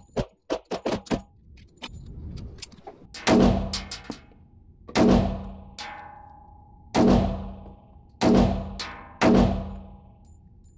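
Five .45 ACP shots from a Colt Gold Cup 1911 pistol, fired at an uneven pace about one to two seconds apart. Each shot echoes off the walls of an indoor range. A run of short, sharp clicks comes in the first second or so.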